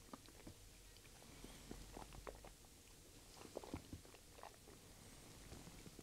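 Faint wet mouth clicks and lip smacks, a few scattered ticks at a time, as a sip of bourbon is worked around the mouth.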